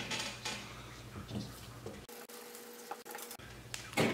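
Hand pumps on bottles of two-part epoxy resin and hardener being pressed to dispense into a plastic mixing cup, with faint small clicks and rustles. A single sharper knock comes near the end.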